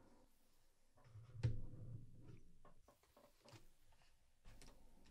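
Quiet handling: a soft low thud about a second and a half in as an AAP-01 airsoft pistol is set down on a tabletop, followed by a few faint taps as things are laid on the table.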